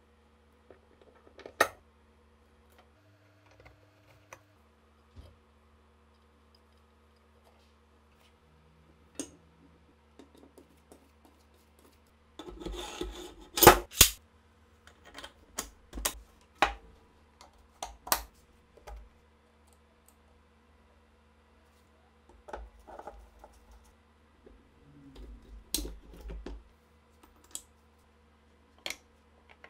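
Small metal parts of an SA-26 submachine gun being handled and fitted together by hand during reassembly: scattered light clicks and clinks. A louder run of clacks comes about halfway through and is the loudest sound here, with more clusters of clicks later on.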